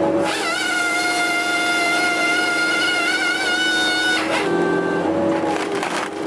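Crane-mounted hydraulic firewood processor head working a log: a steady machine drone with a high whine for about four seconds, then a few sharp cracks.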